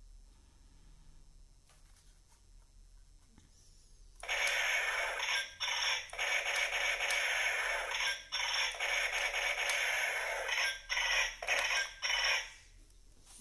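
Battery-powered toy space gun playing its electronic shooting sound effects through a small built-in speaker. Starting about four seconds in comes one long harsh burst, then a string of shorter bursts with brief gaps, the last few quick and short near the end.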